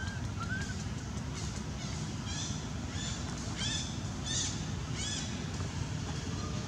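About eight short, high-pitched animal calls in quick succession, starting about two seconds in and stopping a little after five seconds, over a steady low rumble.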